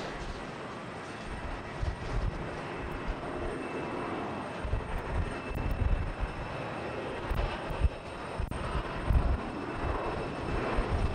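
Jet engines of a United Airbus A320-232, its IAE V2500 turbofans, running as the airliner rolls along the airfield. It is a steady jet hiss with a faint high whine over an uneven low rumble.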